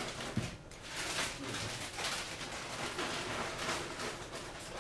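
Light knocks and rustling as a quadcopter's carbon-fibre frame and its wires are handled and set down on a work mat.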